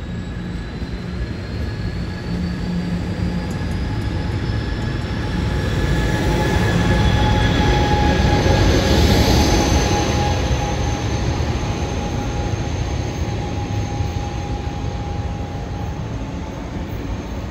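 Amtrak Pacific Surfliner passenger train rolling past along the platform track: a steady rumble of wheels on rails with a few faint high steady tones over it. It builds to its loudest about halfway through, then fades as the train draws away.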